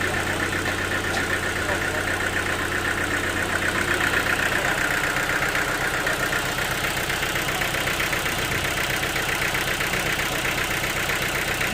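Sawmill machinery running steadily, an engine-like hum with a fast, even pulsing over it; the low hum changes a little about halfway through.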